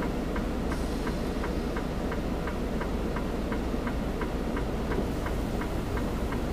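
Steady ticking, about three to four ticks a second, inside a semi-truck cab over the low, even rumble of the truck's diesel engine idling.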